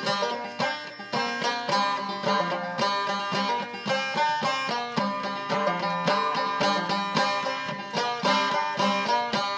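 Banjo played clawhammer style, an instrumental passage of quick, steady plucked notes.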